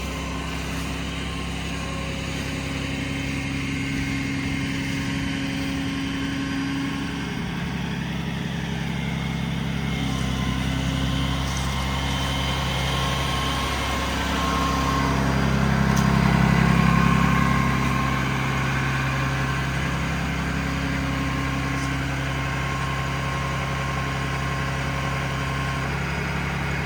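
Ram 5500's 6.7-litre Cummins diesel running at raised idle, driving the service-body crane's hydraulics as the boom is rotated and extended. The engine note steadies and shifts with the hydraulic load, swelling louder about fifteen seconds in and easing back a few seconds later.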